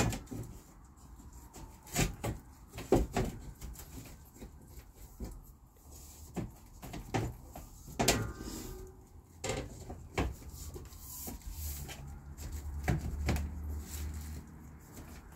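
Scattered knocks and taps as window trim is pushed and fitted by hand around an RV window opening.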